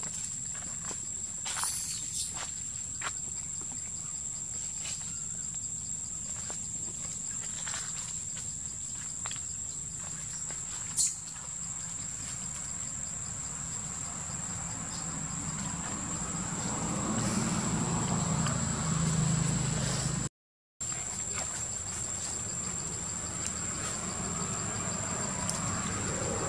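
Insects droning with one steady high-pitched tone, over light crackles and rustles of dry leaf litter. A sharp click about 11 s in, and louder rustling in the middle.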